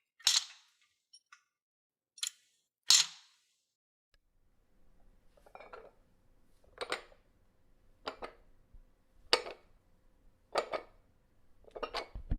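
Metal gym weights clanking together: three sharp clanks in the first three seconds, then six duller knocks about a second and a quarter apart over a faint steady tone.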